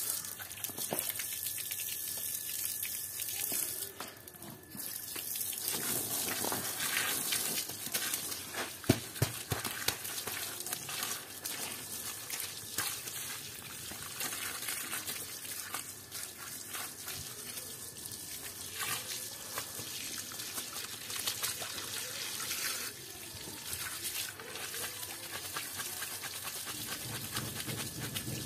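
A thin stream of water splashing onto a soaked plush toy and wet stone floor, with hands pressing and scrubbing the soapy fabric. A single sharp knock about nine seconds in is the loudest sound.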